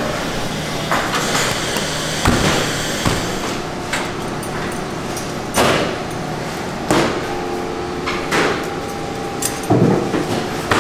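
Irregular sharp knocks and clanks of pork carcasses being handled on steel meat hooks and an overhead rail, about six in all, one ringing briefly like metal in the second half, over a steady hum of processing-room machinery.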